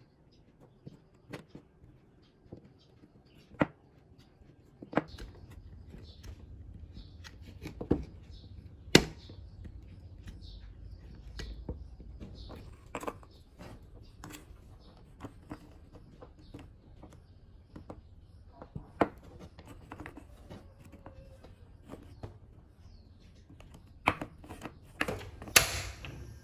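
A snap-off utility knife cutting and prising chunks off a wax candle, with wax pieces knocking onto a wooden tabletop and dropping into a tin can: scattered sharp clicks and knocks. Near the end, a few clicks and a short rush of noise as a gas stove burner is lit.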